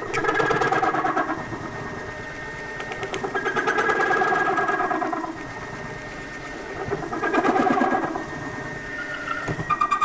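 A large step drill in a mini mill, turning at about 500 RPM, cutting through a metal plate: three loud bouts of rattling cutting noise, each one to two seconds long, with the machine running more quietly in between.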